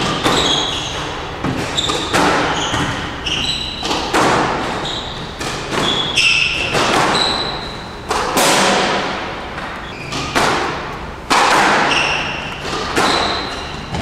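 A squash rally: the ball is struck hard by rackets and smacks the walls about once a second, each hit echoing briefly in the enclosed court. Short high squeaks of court shoes on the floor come between the hits.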